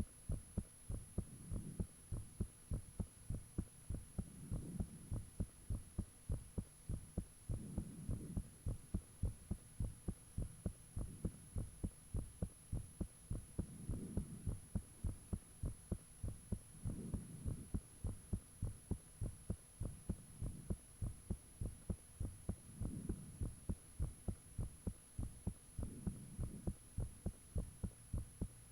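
A person's own heartbeat recorded close up: a steady run of fast, even, low thumps, with a low whooshing swell that rises and fades every three seconds or so.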